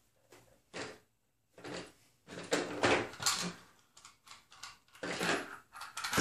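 Small parts and hardware being handled by hand: irregular rustling and clattering knocks, loudest a couple of seconds in and again near the end.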